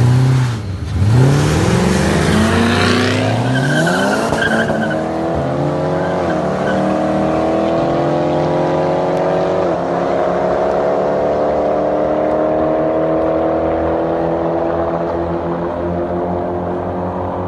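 Two cars, a Ford Mustang GT V8 and a big-turbo VW Bora GLI, revving and then launching from a standing start and accelerating hard away. The engine notes climb steadily in pitch, dropping briefly at gear changes twice, and slowly fade as the cars pull into the distance.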